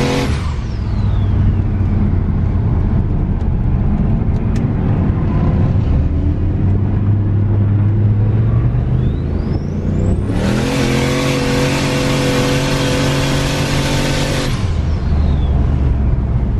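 Turbocharged LS1 V8 in a Holden VY Commodore SS, heard inside the cabin. Near the start a turbo whine falls away as the engine settles. About nine seconds in the whine rises again as the engine comes on boost, turning into a loud rushing hiss over a higher engine note for about four seconds, then falls away as the throttle lifts.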